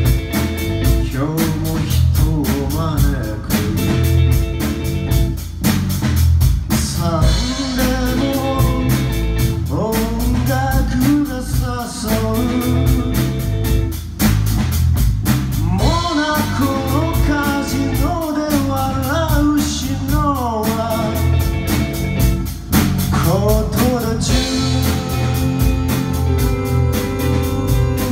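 Live rock band playing an upbeat song: drum kit keeping a steady beat under electric guitar and bass, with a lead vocal on top.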